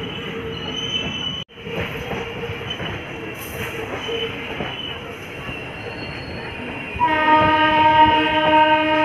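Passenger train running slowly, its wheels rumbling on the track with a faint steady whine. About seven seconds in, a locomotive horn starts a long, steady blast that is the loudest sound.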